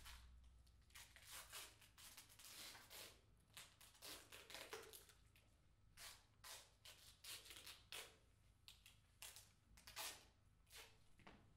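Faint, irregular rustling and scraping from a large cloth puppet and its long control rods being worked by a performer seated on the floor, many short rustles with brief pauses between them.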